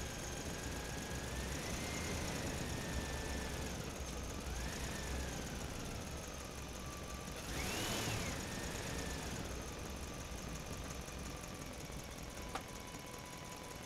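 An engine running, its pitch rising and falling as it revs, with one brief sharp rev about eight seconds in, over a steady low hum.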